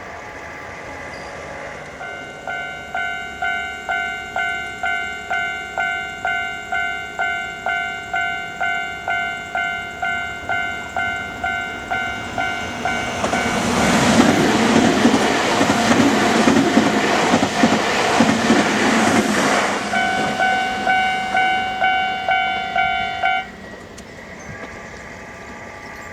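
Japanese railway level-crossing alarm ringing its electronic bell, a pitched chime repeating about one and a half times a second. Midway a train passes over the crossing with a loud rush of wheel and rail noise. Near the end the bell stops abruptly.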